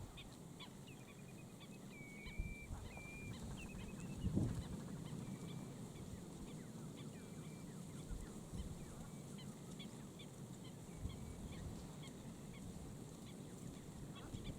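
Wetland birds calling: many short, high calls and a few held notes over a low background rumble, with a single thump about four seconds in.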